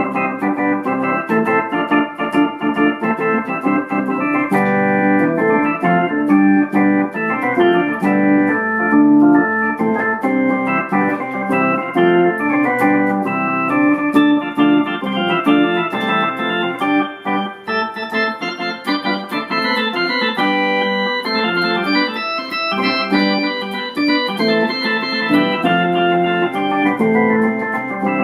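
Yamaha portable electronic keyboard played in a free improvisation of two-handed chords and melody. The notes hold at an even level without fading, like an organ voice, and carry on without a break.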